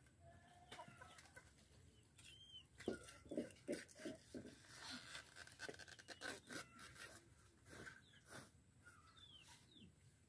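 Faint clucking of domestic chickens, with a quick run of short clucks about three seconds in and scattered calls after, over quiet outdoor ambience.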